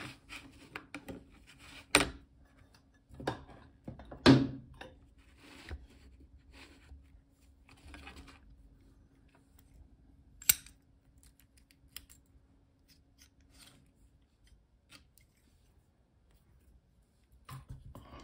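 Solex R40 brass disc detainer padlock handled open: its shackle and body give scattered metal clicks and knocks, the loudest about four seconds in and another sharp one about ten seconds in.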